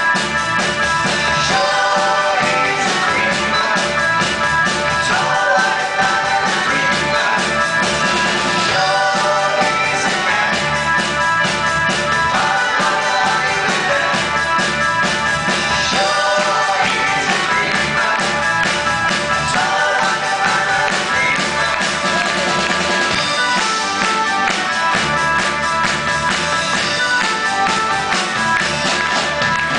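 Live rock and roll band playing: drum kit, bass, guitars and keyboards, with a male lead singer.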